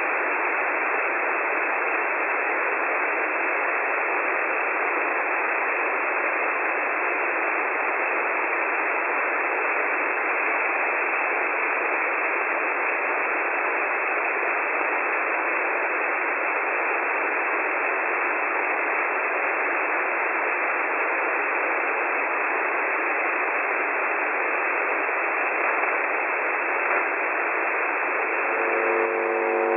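Steady shortwave radio static, a narrow-band hiss from a receiver tuned to the UVB-76 'Buzzer' frequency. Near the end the station's buzzer tone comes in, a steady low buzz over the hiss.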